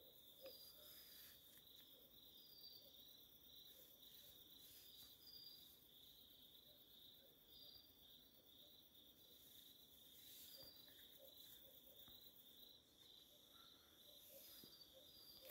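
Faint insects: one steady high-pitched trill, with short higher chirps now and then.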